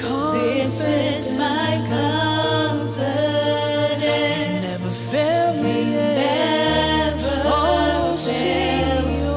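Worship music: several voices singing in harmony, with vibrato, over held low keyboard or bass notes that change about two-thirds of the way through.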